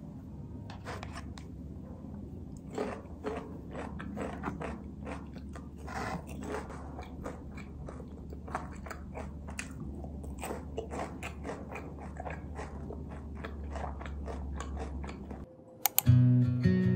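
Close-up crunchy chewing of cubes of pickled chicken radish, crisp irregular crunches over a steady low hum. The crunching stops suddenly near the end and acoustic guitar music comes in.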